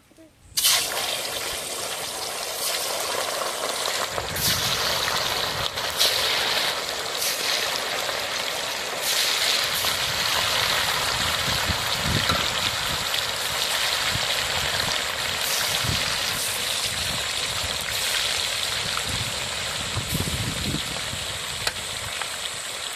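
Fish frying in hot oil in a pan: a steady sizzle that starts abruptly about half a second in, with scattered pops and crackles.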